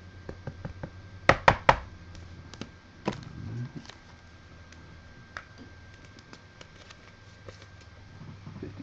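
Trading cards and their plastic sleeves and holders being handled on a table: a run of light clicks, three sharp loud taps in quick succession about a second and a half in, then scattered fainter ticks.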